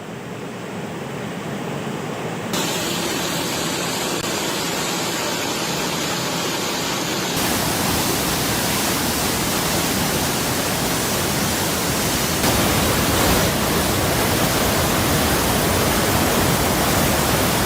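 Loud, steady rushing water noise from heavy rain and floodwater, with no pitch or rhythm in it. It steps up louder about two and a half, seven and a half and twelve and a half seconds in.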